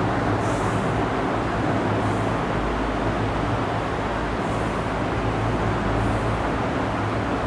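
Steady mechanical background noise: a constant low hum under an even hiss, with a few brief higher hisses.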